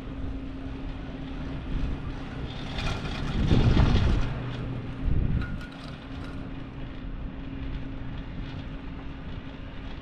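Chairlift running: a steady low hum and rumble from the moving lift, swelling into a louder rumble for about a second and a half near the middle, with a short bump just after.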